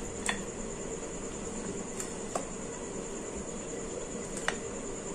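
Metal rolling pin rolling thin dough on an aluminium plate, with four short light clicks as the pin knocks against the metal, over a steady background hiss with a high thin tone.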